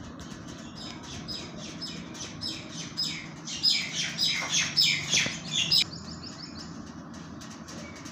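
A bird chirping in a rapid run of short, high, falling notes, about three or four a second, growing louder and then stopping abruptly about six seconds in, over a steady low hum.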